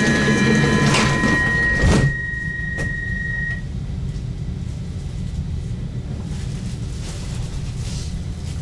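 Stockholm metro car's sliding doors closing, shutting with a loud thud about two seconds in, while a high door-closing warning tone sounds and stops a moment later. Under it the stopped train gives a steady low hum.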